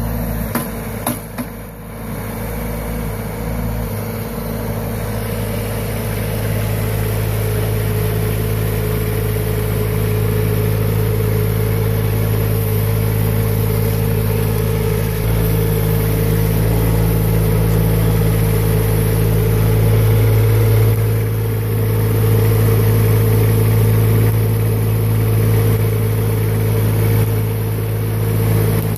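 Boxer 532 DX mini skid steer's engine running steadily. A few knocks come in the first two seconds, then the engine note grows louder and holds.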